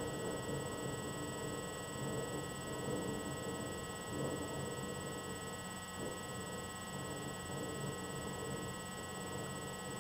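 Room tone: a steady hum and hiss with faint, unchanging high-pitched electronic whines, and no distinct sounds.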